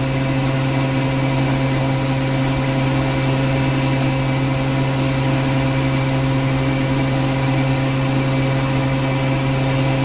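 Star SR20RIII CNC Swiss-type lathe spindle running steadily at 8,000 RPM, a constant pitched hum with fainter higher tones and hiss above it.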